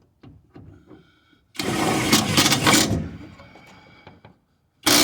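Power drill with a T27 star bit driving a self-tapping screw into the toolbox bracket. It runs hard for about a second and a half, then winds down, with a brief loud burst near the end.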